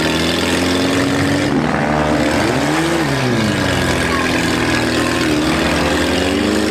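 Compact demolition-derby cars' engines revving hard, the pitch rising and falling.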